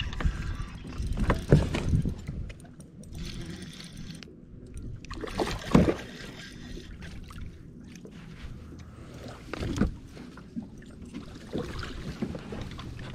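Knocks and thumps of gear and body against a plastic pedal kayak, with clothing rustling and water lapping at the hull, the loudest knocks about a second and a half, six and ten seconds in. A hooked bass splashes at the surface near the bow near the end.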